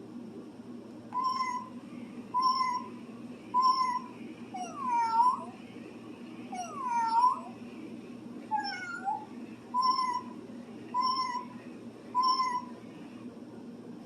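Battery-powered toy walking kitten's sound chip playing recorded electronic meows: short identical chirps about once a second, with two longer swooping meows in the middle. A steady low whirr of its walking motor runs underneath.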